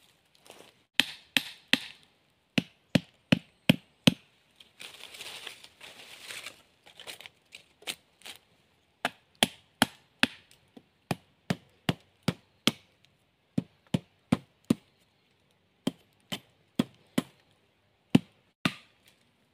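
A machete chopping wooden sticks: a long series of sharp chops, mostly in quick runs of two to four, with a few seconds of scraping noise about five seconds in.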